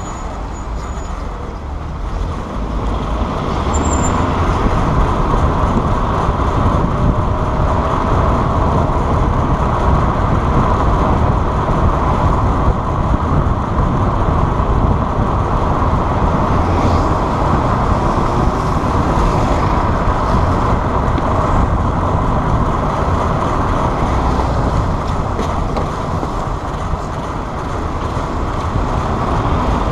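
Steady rushing road and wind noise from a moving vehicle, building up over the first few seconds and then holding level.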